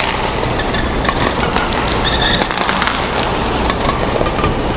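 Badminton rally: sharp, irregular racket-on-shuttlecock hits and a few short shoe squeaks on the court mat, over a steady hum of hall and crowd noise.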